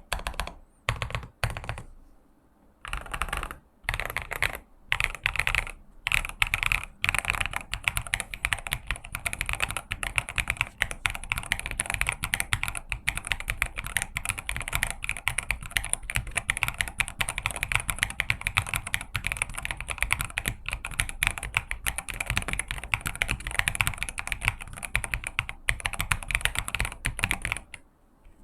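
Fast typing on a Lofree Block 98 wireless mechanical keyboard with linear switches: a dense patter of key clicks and bottoming-out clacks. There are a few short pauses in the first three seconds, then unbroken typing that stops just before the end.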